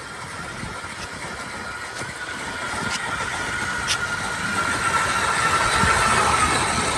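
Power ice auger boring a hole through lake ice: a steady motor whine over the grinding of the spiral blade chewing through ice, growing louder as the blade goes deeper, its whine sagging slightly in pitch.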